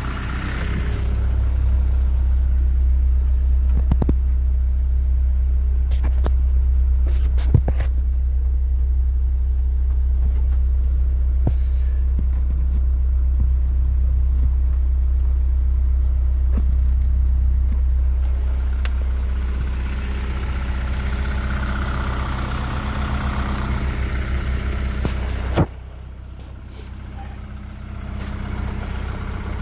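Isuzu 4HK1-TC 5.2 L four-cylinder turbo-diesel idling at about 1,000 rpm, a steady low rumble. Near the end there is a single sharp knock, and after it the running sound is quieter and thinner.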